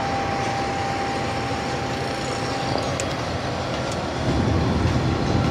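Terex Explorer 5800 mobile crane's diesel engine running steadily, a low rumble that grows louder about four seconds in.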